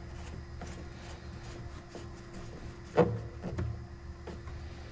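Plastic cap of a coolant reservoir being handled and turned: one sharp click about three seconds in and a few lighter clicks, over a steady low hum.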